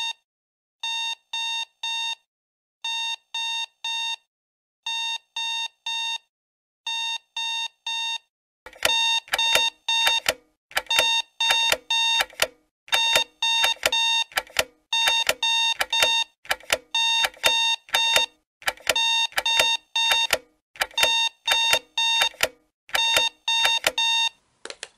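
Electronic alarm beeping in groups of four short high beeps, a group about every two seconds. About nine seconds in the beeping turns louder and denser, with a low thump under each beep, and it cuts off abruptly near the end.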